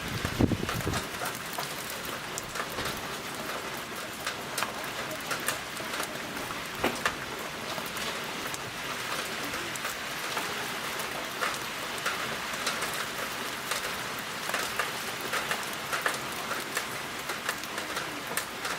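Heavy typhoon rain pouring steadily: a constant hiss with many sharp drip and tap sounds of drops striking surfaces. A brief low rumble comes about half a second in.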